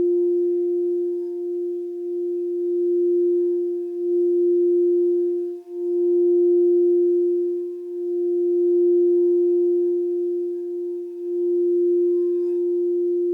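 Crystal singing bowl tuned to the heart chakra, singing one steady tone with a few faint higher overtones. The tone swells and eases every couple of seconds.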